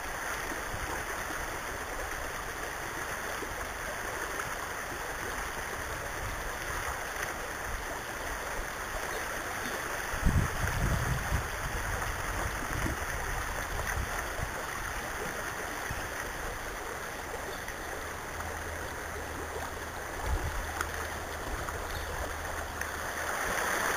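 Steady rush of flowing river water, with a few low thumps about ten seconds in and once more near the end.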